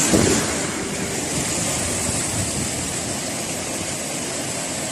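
Wind rushing across the microphone, a steady roar with a ragged low rumble.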